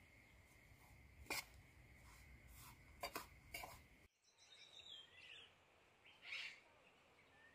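Faint clinks of a metal spoon against an enamel bowl, a few times in the first half, as the dry filling is stirred while it toasts. After about four seconds a few faint bird chirps.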